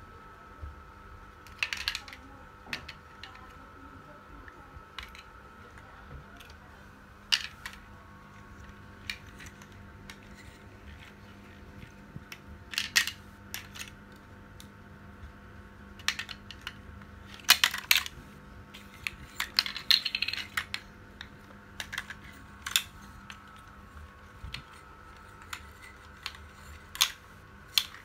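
Hard plastic toy vehicles knocking and clattering against each other and on a tile floor as they are handled, in irregular sharp clicks, some in quick clusters.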